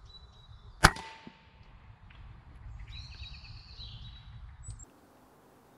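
A single shot from a .177 Walther RM8 UC PCP air rifle about a second in: a sharp crack with a brief ringing tone, then a fainter knock about half a second later. Small birds chirp quietly afterwards.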